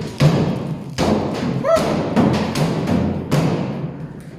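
Music with heavy thuds, one about a second in and another after about three seconds.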